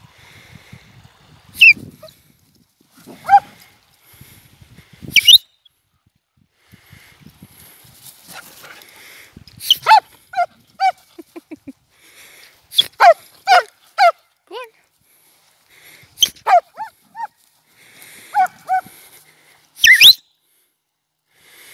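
Border collie giving short, high-pitched, excited barks and yelps, about a dozen in all, some singly and some in quick runs of three or four.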